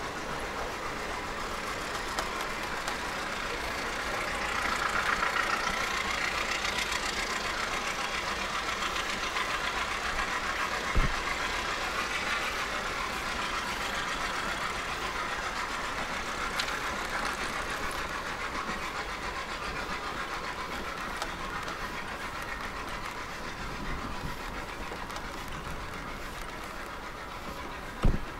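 An engine running steadily out of sight, its noise swelling a few seconds in, with a short thump about a third of the way through and another near the end.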